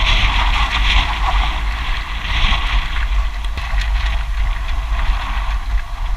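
Wind buffeting an action camera's microphone: a steady low rumble under an even hiss, with a few faint clicks.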